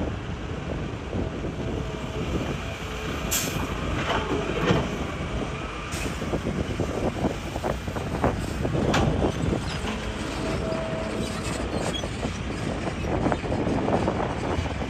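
Hitachi hydraulic excavator digging rock: its engine running steadily under load, with several sharp knocks and scrapes of rock against the steel bucket.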